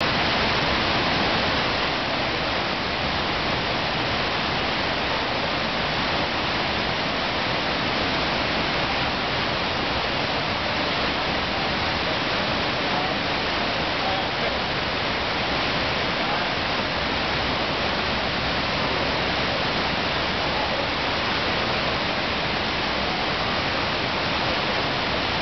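Steady rush of water from a FlowRider standing-wave ride: a thin sheet of pumped water streaming continuously up the padded ramp.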